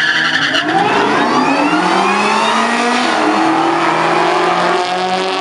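Drag-racing cars, a Ford Mustang and a Ford Focus: a loud tyre squeal cuts off about half a second in. Then the engines rev hard, rising in pitch under acceleration. A gear change comes about three seconds in, and the engines pull on steadily.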